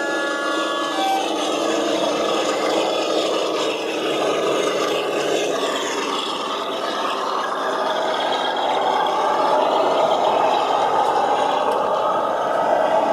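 00 gauge model diesel train running past close by: a steady motor whir with the wheels rattling and scraping over the rails, louder near the end as the train draws level. A two-tone locomotive horn finishes about a second in.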